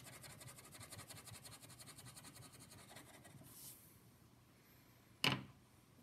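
Crayon scribbling on paper in quick, even back-and-forth strokes, faint, fading out after about three seconds. A single sharp knock comes a little past five seconds in.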